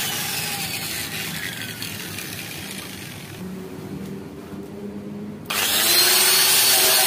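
Angle grinder winding down, its whine falling in pitch and fading. About five and a half seconds in it starts again suddenly and grinds against the rusty steel of a fire-damaged car's front frame, scrubbing off burnt scale and rust.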